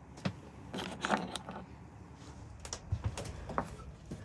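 A string of small clicks, rattles and knocks as a boat key on a cord is picked up and a narrowboat's wooden cabin door is unlatched and pushed open.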